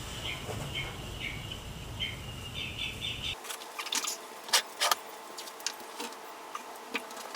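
Short high chirps repeating a few times a second, like a small bird. About halfway through, the sound changes abruptly, and scattered sharp clicks and knocks of handling follow.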